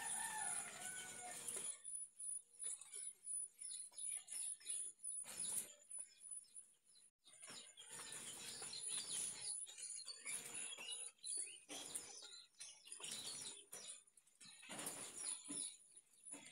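Intermittent rustling and scraping of hands handling live freshwater prawns and dry sticks on a concrete floor. A few bird-like chirps sound in the first second and a half over a faint steady high whine.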